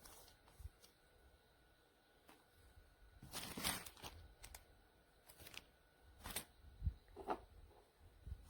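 Faint handling sounds: scattered light clicks and knocks, with a brief rustle about three and a half seconds in.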